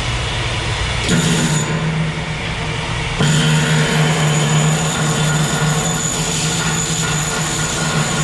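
Arc welding in the overhead (4F) fillet position: a continuous harsh crackle and hiss over a steady hum. It starts about a second in and gets louder about three seconds in.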